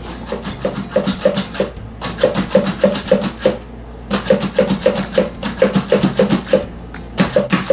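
Plastic plunger-type hand chopper pumped rapidly to chop garlic cloves: a run of sharp plastic clacks, about three or four a second, in bursts with short pauses between them.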